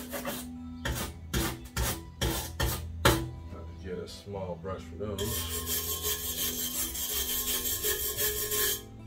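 A stiff hand brush scrubbing rust off a truck's rusty step rail. It starts as separate strokes, about two a second, then turns to fast, continuous scrubbing about five seconds in.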